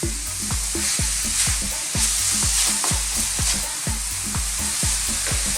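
Chicken, green peppers and bean sprouts sizzling as they are stir-fried in a very hot wok. Background music with a steady beat plays underneath.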